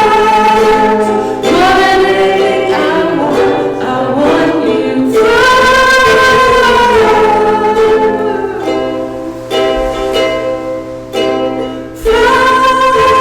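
Worship song in a church service: voices singing long, held phrases over instrumental accompaniment.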